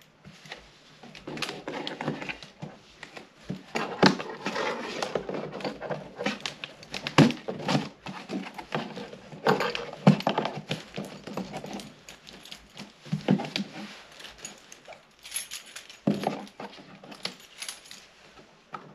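Fingers scratching and picking at packing tape on a cardboard shipping box, peeling it back to open the box: irregular scrapes, taps and rustles with short squeaks.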